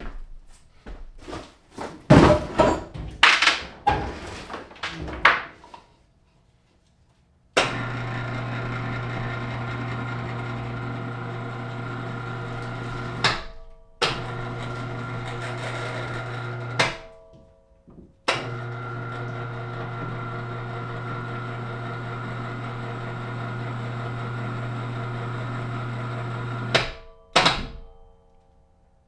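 Harbor Freight 440 lb electric hoist running with a steady hum, starting and stopping three times (runs of about six, three and eight seconds with short gaps), moving the ceiling clamp rack on its first trial run. Before the hoist starts, the first several seconds hold a series of knocks and clatters, and two more knocks come near the end.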